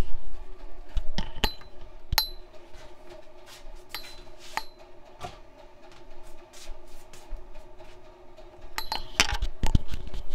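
Electric coffee percolators heating up: scattered sharp metallic ticks and pings, with a cluster of clicks about nine seconds in, over a faint steady hum.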